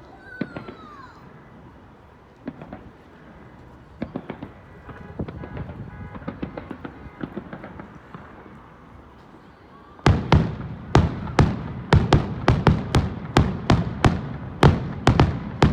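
Aerial fireworks bursting: scattered pops and crackling at first, then from about ten seconds in a rapid run of loud bangs, about two a second.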